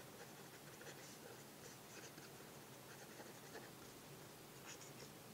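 Parker Sonnet fountain pen with a medium nib writing cursive on notebook paper: faint, light scratching of the nib in short irregular strokes.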